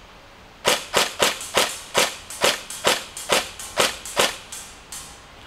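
Tokyo Marui MP5K airsoft electric gun, fitted with a GATE TITAN V3 trigger unit, firing in burst mode. About a dozen sharp shots come evenly, two to three a second, starting just under a second in; the last two are fainter.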